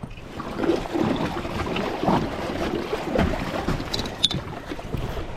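Water moving and splashing around a small inflatable river raft, with wind buffeting the microphone, and a few short clicks near the end.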